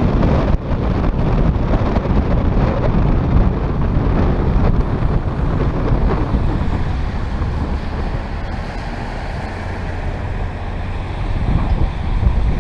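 Wind rumbling on the microphone over the road noise of a car driving slowly on wet pavement. The rumble eases a little past the middle and picks up again near the end.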